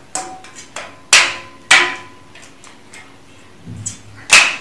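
Sharp clicks and knocks from a folding laptop table being handled and adjusted, with three loud ones about a second in, just under two seconds in and near the end, and a few fainter ticks between.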